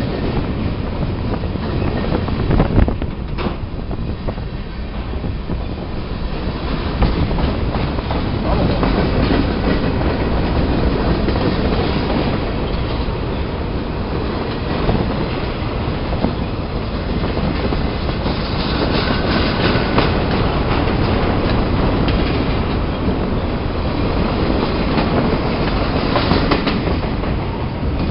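Freight cars of a passing train rolling close by: steel wheels running steadily on the rail, with scattered clicks and clacks as the wheels cross the rail joints.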